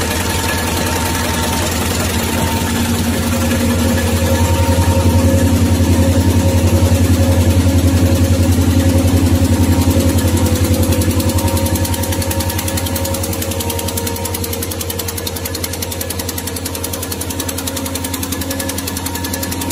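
RZJD-350J V-bottom paper bag machine running at production speed, about 648 bags a minute: a fast, even mechanical clatter over a steady low hum. It grows louder about four seconds in and eases off again after about eleven seconds.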